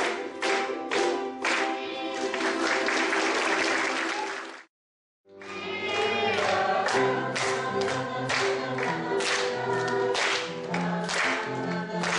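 Live group singing with instrumental accompaniment, the audience clapping along in time about twice a second. The sound drops out completely for about half a second near the middle, then the song and clapping carry on.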